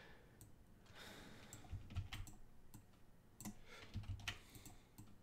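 Faint clicks and taps of a computer keyboard and mouse, coming in scattered ones and short runs.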